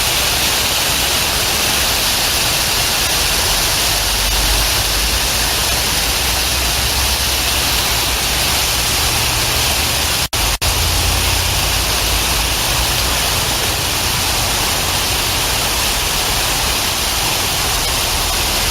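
Steady rain sound effect, an even unbroken wash of falling rain with a low rumble underneath. It cuts out twice for a split second about halfway through.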